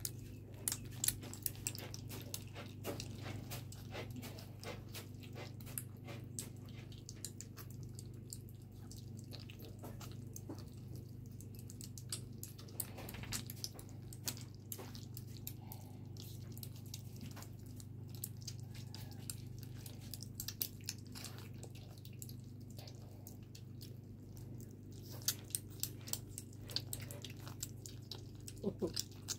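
Kittens chewing wet cat food from plastic bowls: a steady patter of small wet clicks and smacks, busier near the end, over a low steady hum.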